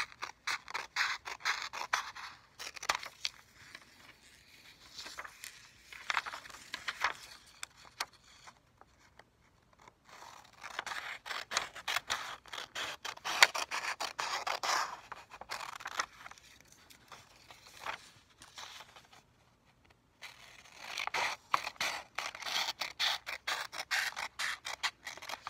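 Scissors cutting through a sheet of printer paper: runs of quick snips with the rasp of the blades, broken by a couple of short pauses.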